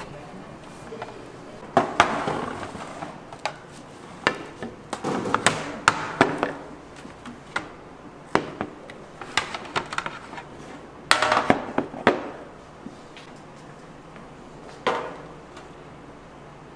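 Tableware clattering: scattered sharp clinks and knocks of dishes and utensils, some ringing briefly, coming in small clusters.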